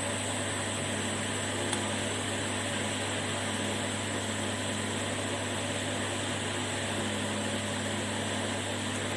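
Steady fan-like whir with a constant low electrical hum, unchanging throughout.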